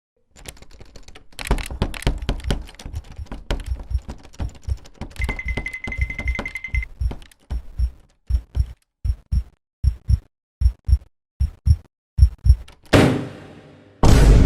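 A door being battered and pried with a crowbar, as a cartoon sound effect: a flurry of thuds and knocks with a held high beep in the middle, then a steady run of single thumps about three a second, ending in a loud crash.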